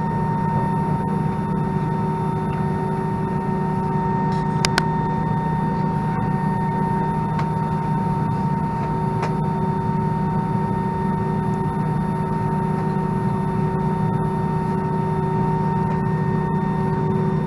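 Steady cabin hum of an Airbus A319 on the ground after landing, with a constant whine from the idling engines and air system, and one short click about four and a half seconds in.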